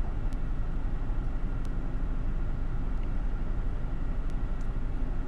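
Steady low rumble of a car heard from inside the cabin, with a few faint ticks.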